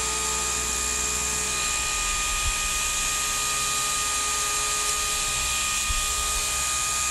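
Small propeller motor of an LED flying orb ball toy running steadily in the hand, an even high-pitched whir, with two light knocks about two and a half and six seconds in.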